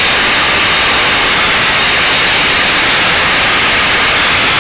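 Aerobatic propeller plane in flight, heard from inside the cockpit: a loud, steady rushing noise of engine and airflow with no change in pitch.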